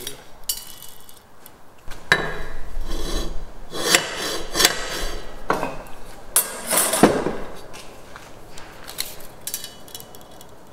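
Steel parts being handled and clamped on a workbench: a round steel plate shifted and clamped onto steel box section with a bar clamp, giving metal scraping and a series of irregular knocks, the loudest about seven seconds in.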